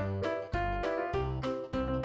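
Background music: piano or electric keyboard playing a bright melody with a steady beat, about two notes a second, over a bass line.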